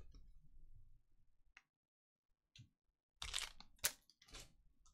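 Trading cards being handled: a faint click, then a few short rustles and one sharp click near the end as the stack is squared up and set down.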